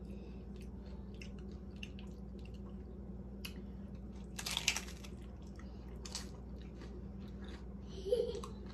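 Close-up chewing of a chicken taco, with small wet mouth clicks throughout and a louder bite about four and a half seconds in.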